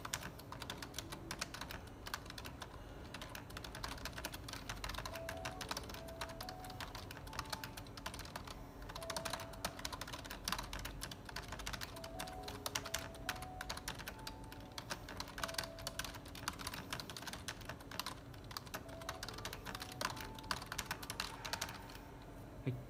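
Fast touch-typing on a computer keyboard: a dense, rhythmic stream of key clicks at about 270 characters a minute, stopping just before the end.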